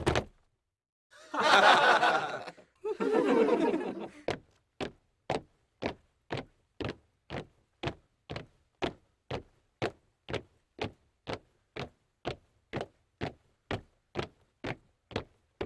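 Two short breathy human sounds like snickers, then a steady series of sharp clicks or taps, about two a second.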